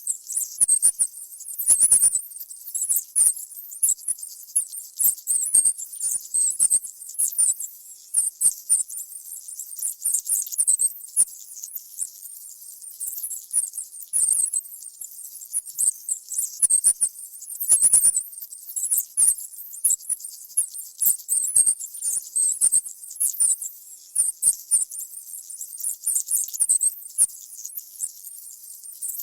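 Mice squeaking: a continuous stream of short, very high-pitched squeaks and chirps, with faint ticks and scratches underneath.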